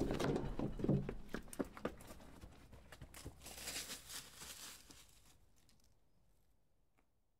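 Footsteps climbing a dirt trail with log steps: scattered scuffs and knocks, with a brief rustling hiss about three to four seconds in, the sound gradually fading out toward the end.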